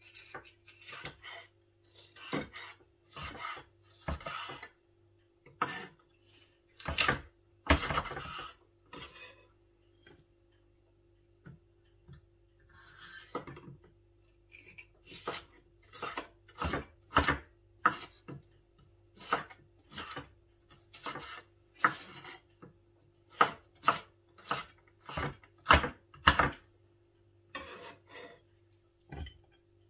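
Chef's knife slicing bell peppers on a wooden cutting board: a long run of irregular knife taps on the board, with a short pause about ten seconds in.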